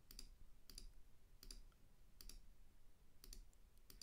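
Faint computer mouse clicks, about six of them at uneven intervals, as items in a charting program's panel are toggled on and off.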